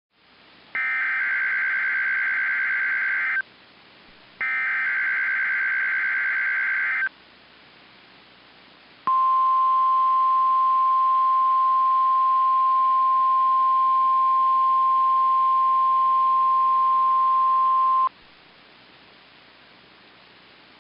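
NOAA Weather Radio test signal received on a weather radio. First come two bursts of buzzing SAME digital header data, each about two and a half seconds long and a second apart. Then, after a short pause, the steady 1050 Hz warning alarm tone sounds for about nine seconds, with low radio hiss in the gaps.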